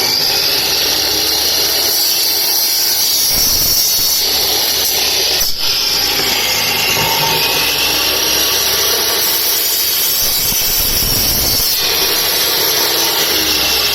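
Handheld power cutter running continuously as it cuts off the mounting legs of a BLDC fan kit's magnet ring, a loud steady grinding noise with a high whine.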